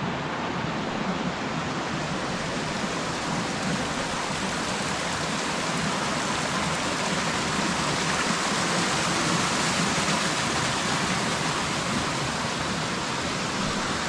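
Rushing water of a waterfall, a steady even hiss of falling and flowing water.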